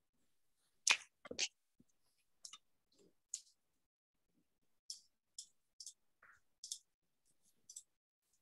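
Light, irregular clicking, about a dozen short sharp clicks spread unevenly, with two louder knocks about a second in.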